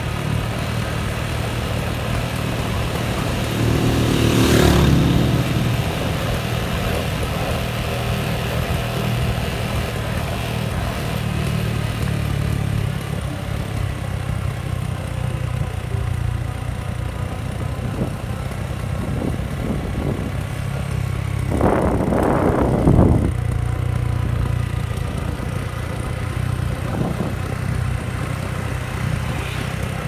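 Motorcycle engine running steadily on the move, with a steady low rumble of wind on the microphone. It swells louder briefly about four seconds in and again around twenty-two seconds.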